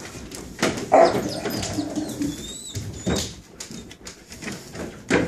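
Husky-wolf mix dogs making low grumbling growls and whines, with a thin high squeal about three seconds in. Scuffling bumps against the wooden box come throughout, the loudest about a second in and again at the end.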